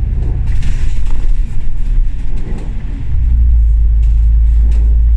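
Double-decker bus (a KMB Alexander Dennis Enviro500 MMC) heard from inside the cabin: engine and road rumble. For about the first three seconds the rumble is rough and uneven with rattling, then it settles into a steady low drone.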